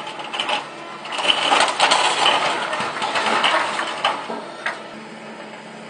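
Corrugated metal roof sheets and timber of a barn crunching and clattering as an excavator pulls the roof down, loudest in the middle and dying away with a couple of last cracks near the end. The excavator's engine runs steadily underneath.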